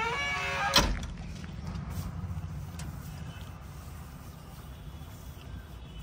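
A creak from the backhoe loader's metal cab door, then a single sharp bang about a second in as it knocks shut, over a steady low rumble.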